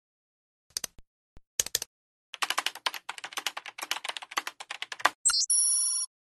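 Typing sound effect: a run of quick keystroke clicks as a web address is typed out on screen. It ends in a quick sweeping chirp and a steady chord-like electronic tone for about half a second.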